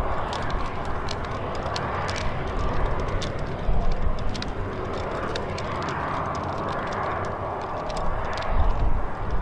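Aircraft engine noise, a steady rushing hum that swells and fades, with wind buffeting the microphone in low irregular rumbles.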